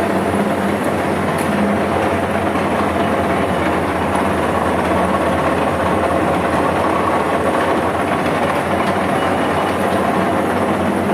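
A machine running steadily: an even, loud mechanical rumble and hiss with a low hum, no starts or stops.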